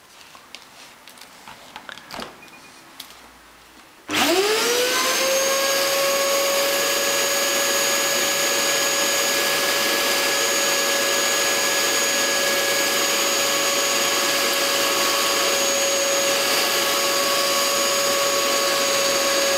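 A few faint clicks, then about four seconds in a vacuum cleaner is switched on, its motor whine rising quickly to a steady pitch and running steadily, drawing air through a drinking straw taped onto the hose nozzle.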